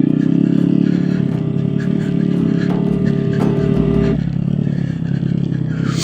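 Honda Grom's single-cylinder engine running as the bike is ridden over dirt, its pitch shifting about four seconds in, with music playing underneath.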